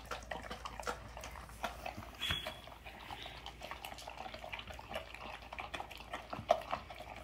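Two basset hounds eating dry kibble from ceramic bowls: a steady run of irregular crunching, chewing and small clicks of food against the bowls.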